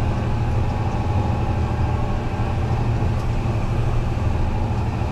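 Fendt 933 Vario tractor running under way, a steady low drone of engine and drivetrain heard inside the closed cab.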